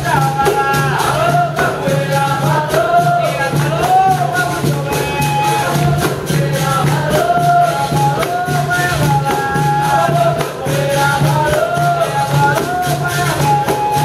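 Capoeira roda music: group singing over berimbaus, a pandeiro and handclaps, in a steady rhythm.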